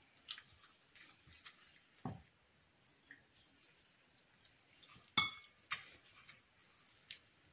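Soft wet squishing of sardines being rubbed by a gloved hand in chermoula marinade in a glass bowl. Light ticks and taps throughout, a dull thump about two seconds in, and two sharper clicks against the glass a little past halfway.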